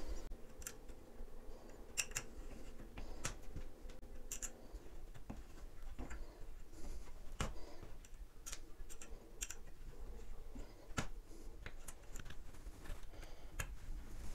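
Small Allen key working the grub screw on a chrome towel ring's wall bracket: irregular light metal clicks and taps, one every second or so.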